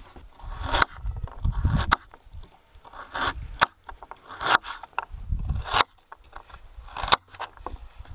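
Kitchen knife cutting a raw carrot on a wooden cutting board: six or seven crisp crunches, each ending in a knock on the board, roughly one a second and unevenly spaced.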